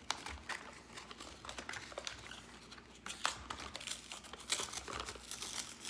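Plastic pudding cups being handled and their peel-off lids torn open: a run of crinkling and crackling with scattered sharp clicks.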